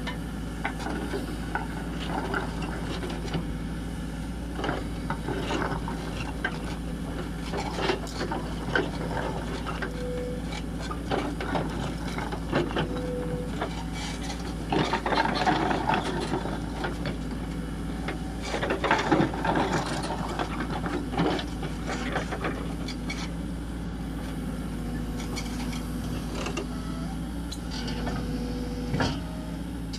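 Cat 434E backhoe loader's diesel engine running steadily while its backhoe bucket digs into a pile of paving stones, with repeated knocks and clatter of stone on steel, loudest about halfway through.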